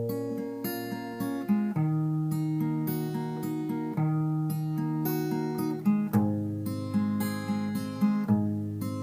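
Background music: an acoustic guitar intro with plucked and strummed chords.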